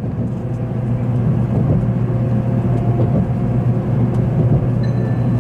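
Steady low rumble of a Tokaido Shinkansen train running, heard inside the passenger car. About five seconds in, the onboard announcement chime begins with high clear notes.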